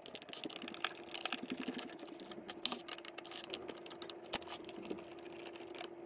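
Hand screwdriver backing out the screws that hold a fan motor to its rear housing: a run of small, irregular clicks and scrapes. A faint steady hum runs behind it.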